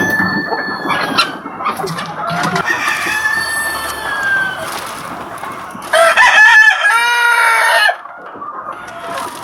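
Many chickens clucking and calling, with a loud, drawn-out rooster crow lasting about two seconds late in the stretch.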